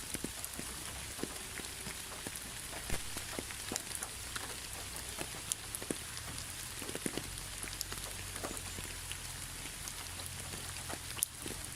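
Steady rain falling, an even hiss with many separate drops tapping on a surface.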